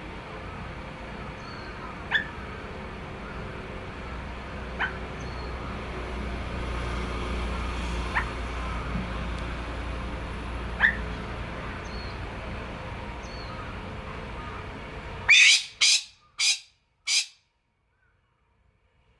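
Male golden pheasant giving short single call notes every few seconds, then, about fifteen seconds in, a sudden, shrill burst of four loud harsh notes. This piercing call is said to warn off rival males and attract females.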